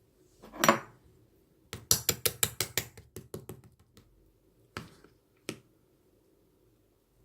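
A short scraping or rustling sound, then a quick run of sharp clicks or taps, about seven a second, followed by a few scattered single clicks.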